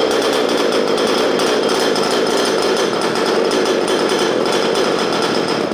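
32cc Zenoah two-stroke engine of a 1/5-scale RC truck running steadily just after being pull-started, stopping right at the end. It has just started from cold after sitting for years, and the owner thinks it could use some tuning.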